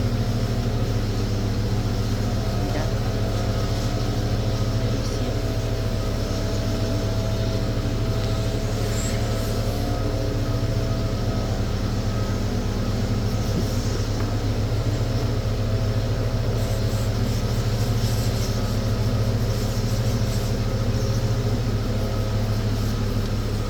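An engine running steadily at a constant speed, with an even hum that does not change.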